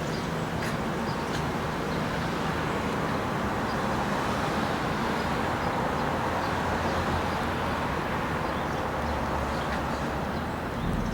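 Steady engine drone of a distant vehicle, even in level throughout, with no distinct events.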